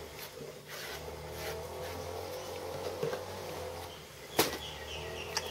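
A steady low hum, with a single sharp knock of metal on the workbench about four seconds in and a lighter click just after.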